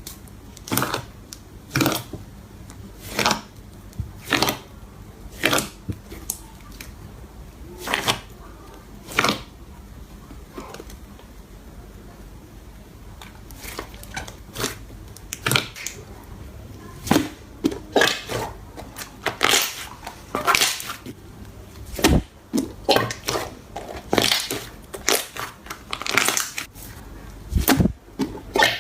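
Slime being pressed and squeezed by hand, making short crackling pops: about one a second at first, then, after a quieter stretch in the middle, quicker clusters of pops.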